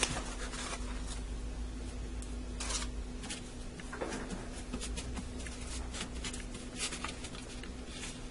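Hands patting and pressing refrigerated biscuit dough flat on a floured plastic plate: an irregular string of soft pats, taps and scuffs.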